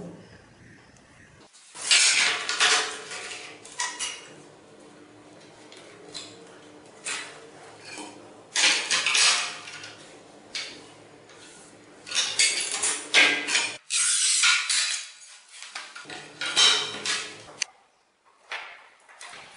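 Folding metal angle template clattering and scraping as it is handled and set down on ceramic tiles, in four or five separate bursts of metallic clinks.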